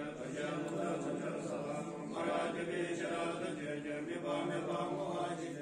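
Monks chanting Bon prayers, a continuous low-pitched recitation in phrases of a second or two.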